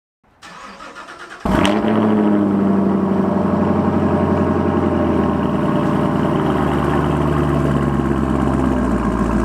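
Chevrolet Camaro SS 1LE's 6.2-litre V8 starting about a second and a half in, flaring briefly in pitch, then settling into a steady idle.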